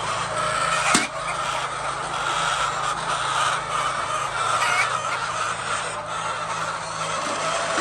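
A flock of chickens clucking and calling together in a continuous chatter, over a steady low hum. There is a sharp knock about a second in.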